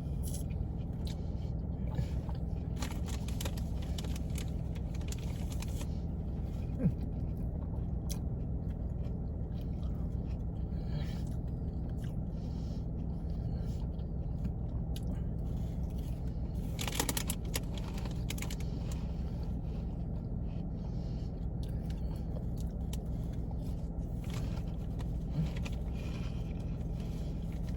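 A person chewing and eating a sub sandwich, with faint scattered mouth clicks and a short rustle about two-thirds of the way through, over a steady low hum.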